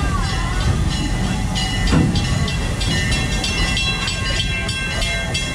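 Passenger train cars rolling along the track, heard from on board: a steady low rumble with rapid rattling clicks and thin high squeaks from the wheels.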